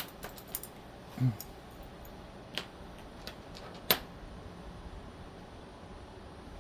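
A few scattered sharp clicks and taps of small metal folding-knife parts being handled and fitted, the loudest near the four-second mark, with a brief low hum about a second in.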